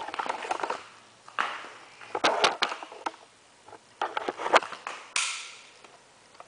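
Handling noise around a hard plastic tool case holding a cordless grease gun and its charger: scattered clicks and knocks, with a couple of short scrapes about a second and a half in and again near the end.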